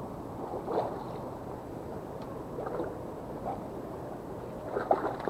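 Steady open-air background noise of wind and water, with a few faint, brief distant voices now and then.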